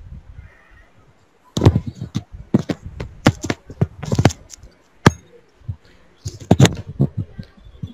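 An irregular run of sharp clicks and taps on a computer, starting about a second and a half in, as slides are paged through quickly one after another.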